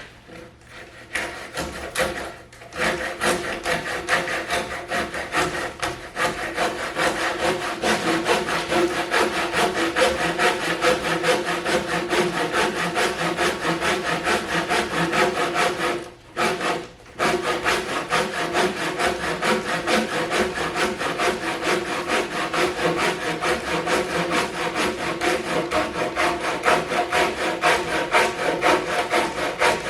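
Saw cutting into a wooden 6x6 timber, fast even strokes that run steadily, with a brief pause about sixteen seconds in.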